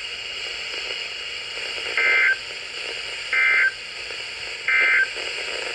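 Three short bursts of Emergency Alert System (SAME) digital data tones over a radio channel, each a buzzy two-tone warble about a third of a second long, about a second and a third apart: the end-of-message code that closes an EAS warning. A steady hiss runs between the bursts.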